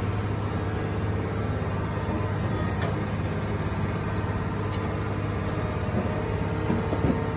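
Cat M322 wheeled excavator's diesel engine running steadily while it lifts scrap off a trailer, with a few light knocks.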